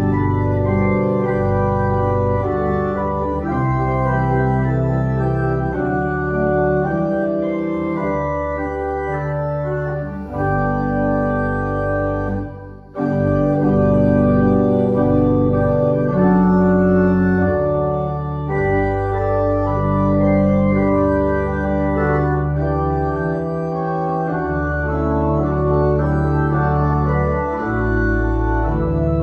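Organ playing slow, sustained chords that change every second or so, with a brief break between phrases about thirteen seconds in.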